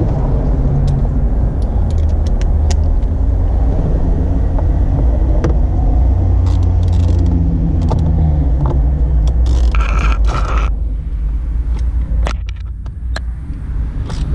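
A low, steady rumble with scattered short metallic clicks from a ratchet and socket extension tightening a steering-wheel nut on the steering column. There is a brief scrape about ten seconds in, and the rumble eases after it.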